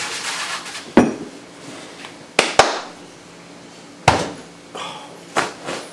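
Flour being poured and swept by hand across a metal cookie sheet with a soft rustling hiss, followed by about five sharp knocks and claps, two in quick succession. These are the dough being set down on the sheet and floury hands being clapped clean.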